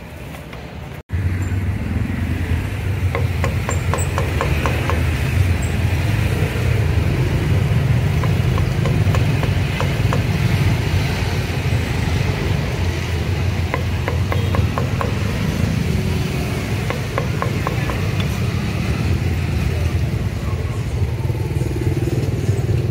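Cleaver chopping roasted meat on a thick wooden chopping block, in quick runs of sharp knocks, over a loud steady engine rumble that starts about a second in.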